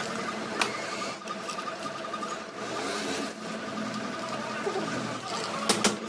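Small electric motor running steadily with a pulsing hum, with a sharp click about half a second in and two more clicks near the end.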